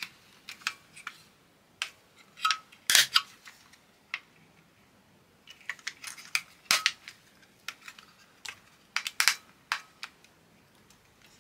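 Scattered sharp plastic clicks and taps as a Fluke 12 multimeter's circuit board and plastic case are handled and fitted back together, with the loudest clicks about three seconds in and again near seven and nine seconds.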